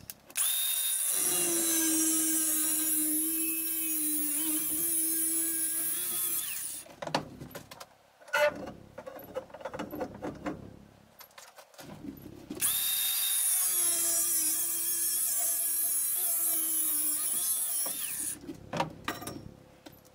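Angle grinder with a thin cut-off wheel cutting through a steel tube in two long runs, each spinning up, running steadily for about six seconds and winding down. Between and after the runs come knocks and clatter of the tube and tool being handled.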